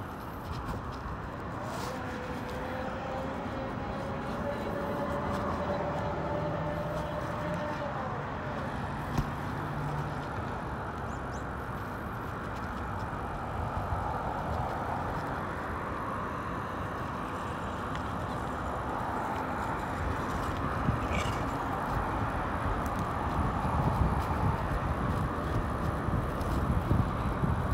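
Wind rushing over the microphone and tyre noise from an e-bike riding along a paved path, a steady rushing sound whose low buffeting grows stronger near the end. A faint thin whine rises slowly for a few seconds about two seconds in.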